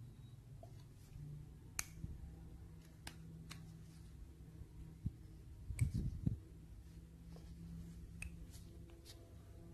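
Faint, scattered sharp clicks of a steel pick tool and a wrist-pin retainer C-clip against a two-stroke trimmer piston as the clip is worked into its groove. A short cluster of low handling knocks comes about six seconds in, over a low steady hum.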